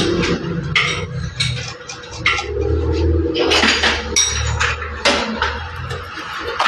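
Metal parts and tools clinking and knocking against each other at an irregular pace, over a low steady hum.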